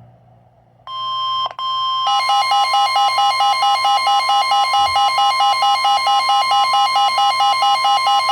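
Weather-radio alert alarm: a steady electronic warning tone starts about a second in, and from about two seconds in a pulsing beep of two or three pulses a second sounds over it, the signal that a severe thunderstorm warning is about to be read.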